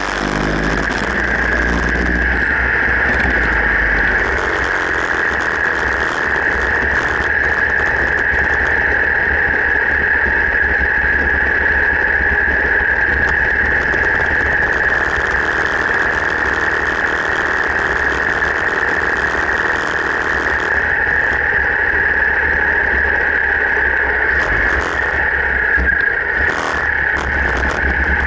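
Harley-Davidson V-twin motorcycle running steadily while being ridden, picked up by an action camera mounted on the bike, with a constant low rumble and a steady noise over it.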